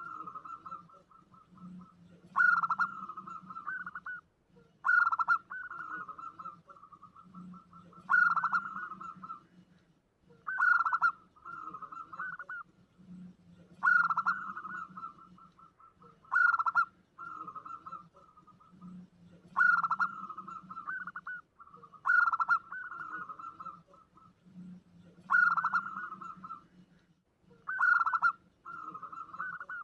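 Zebra dove (perkutut) lure call, repeated about every two and a half to three seconds. Each call opens with a sharp, louder note and runs on in a rapid stuttering coo-trill.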